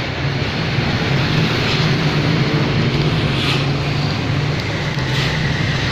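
Rusi RFI 175 motorcycle engine running steadily with an even low hum, which the owner calls quiet.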